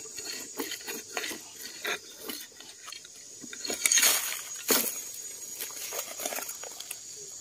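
A wooden-handled digging tool scraping and knocking against charred wood and dry soil as it rakes inside a hollow in a burnt tree stump: a string of short scrapes and clicks, loudest about four seconds in as a land snail is dragged out of the hole. A steady high insect drone sits behind.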